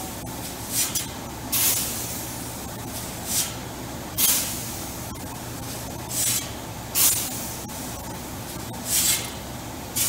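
Wheat being scooped and thrown with a grain shovel in a steel bin: a rasping hiss of sliding kernels, seven strokes, one every second or two. Under it runs a steady low hum.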